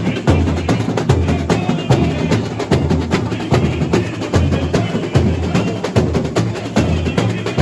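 Samba school bateria playing a driving samba groove: deep surdo bass drums pulse under a dense, steady rattle of snares and small high-pitched drums.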